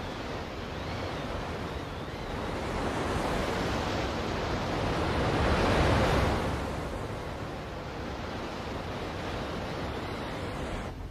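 Sea waves rushing, with wind: a steady wash of water that swells to its loudest about halfway, then eases and stops abruptly near the end.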